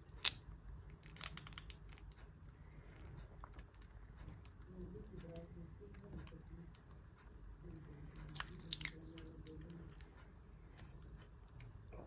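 A knife cutting and squeezing through soft wax honeycomb full of honey: wet squishing and light crunching, with a sharp click just after the start and a short run of clicks about two-thirds of the way through.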